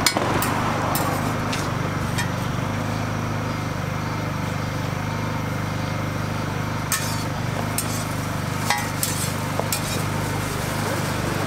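A metal spatula clinking and scraping against a flat steel griddle as slices of bread are turned and pressed: a few sharp clicks in the first two seconds and a cluster of them again in the later part. A steady low hum runs underneath.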